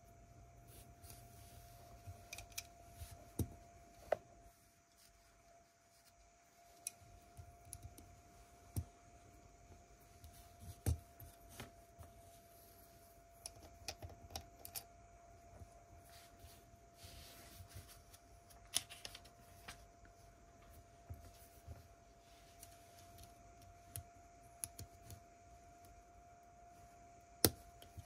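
Small plastic Lego pieces being handled and pressed together: scattered light clicks and taps at irregular intervals, with a few sharper snaps, under a faint steady hum.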